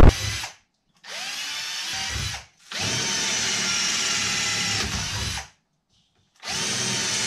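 Handheld cordless drill boring holes in a metal bracket held in a vise: three separate runs of the motor whine, each rising in pitch as the trigger is squeezed, with short pauses between them. The very start holds the loud end of an explosion sound effect.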